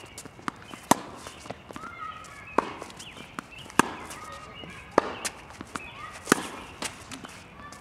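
Tennis rally on a hard court: tennis balls struck by racquets, five sharp pops a little over a second apart, with lighter clicks of the ball bouncing and shoes on the court between them.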